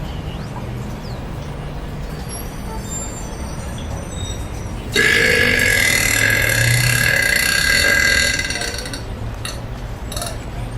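One long, loud burp that starts suddenly about halfway in and lasts about three seconds, over a steady low rumble.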